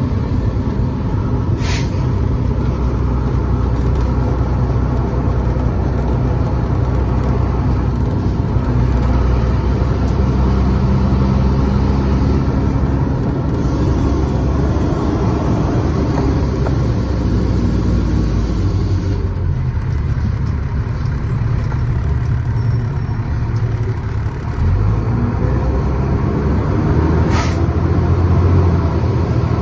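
Fire truck engine running as the truck drives along, heard from inside the cab with road and wind noise. The engine dips briefly and picks up again about three-quarters of the way through. Two short sharp clicks come through, one near the start and one near the end.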